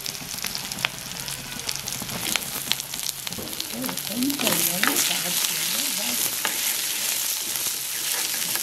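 Sliced shallots sizzling in hot gingelly (sesame) oil in a clay pot with garlic, green chillies and curry leaves, just after being added; the sizzle grows louder about halfway through, with a few light clicks. Near the end a wooden spatula starts stirring them.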